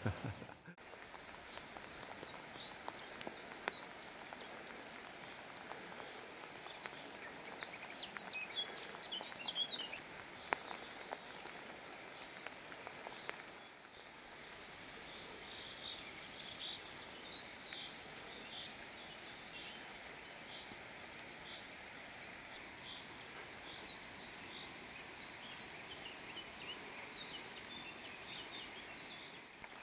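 Small songbirds chirping and singing in the trees in short, repeated phrases, over a steady hiss of light rain.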